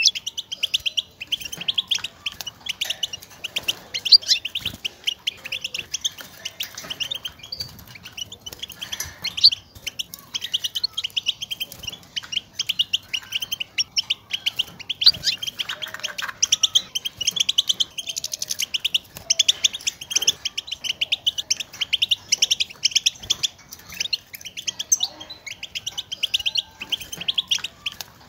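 European goldfinch twittering: a continuous stream of rapid, high chirps and short trills. It is the excited contact call that goldfinches use to call to one another and announce their presence.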